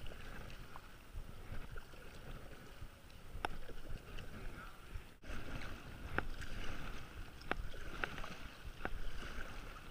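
Paddle strokes swishing and splashing in the water beside a homemade PVC pontoon kayak, the sound swelling and fading with each stroke, with a few short sharp knocks.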